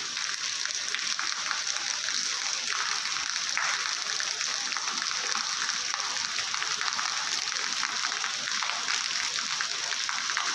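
Heavy rain falling steadily on wet stone-tiled paving, a dense, even hiss of drops splashing on the flooded surface.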